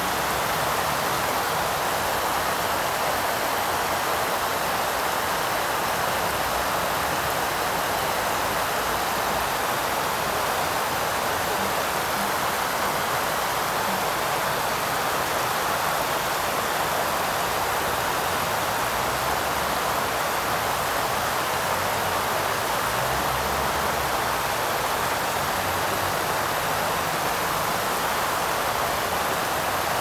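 Artificial waterfall: a broad sheet of water pouring down a sloped wall and splashing into the pool below, a steady, even rush of water.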